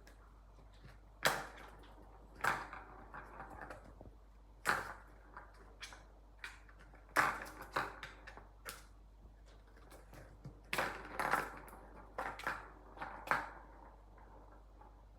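Cat toy being batted about: irregular sharp knocks and clicks, about a dozen, some quickly one after another and some with a short ringing after.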